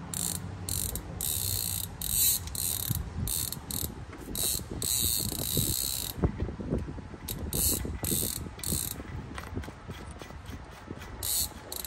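Paper towel rustling and scraping against greasy metal as the inside of a truck's front wheel hub is wiped out. It comes in short scratchy strokes, with a few light knocks of metal in between.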